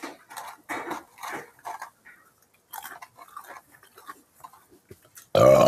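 A man chewing a fast-food meal in short, irregular bursts, with small clatters and rustles from the food and its paper packaging. A loud burp comes in near the end.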